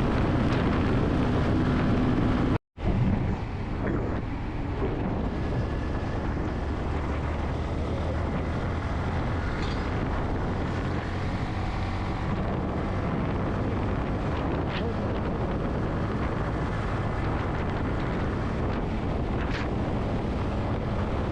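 Wind rushing over the microphone with a Yamaha MT-15's 155 cc single-cylinder engine running underneath as the motorcycle is ridden along the road. The sound cuts out completely for a moment about three seconds in.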